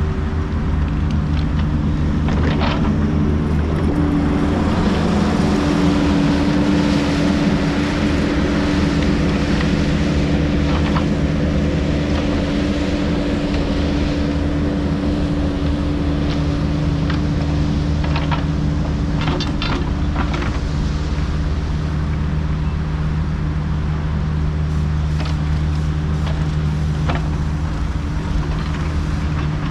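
Kubota U55 mini excavator's diesel engine running steadily under hydraulic load, with a steady hydraulic whine from about four seconds in. A few short knocks and clanks come through over it as it works.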